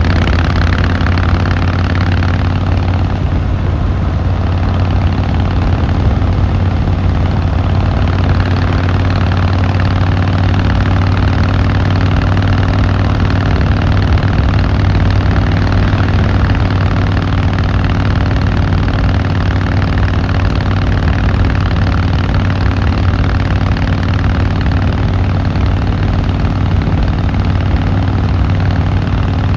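Harley-Davidson Fat Boy Lo's V-twin engine and exhaust running steadily with a deep, even note.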